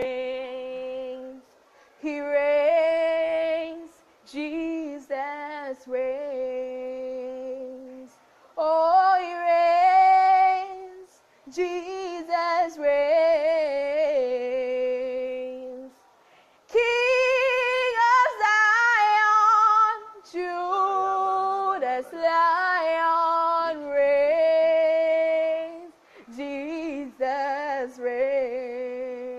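A young woman singing a worship song unaccompanied, in phrases a few seconds long with short pauses between them.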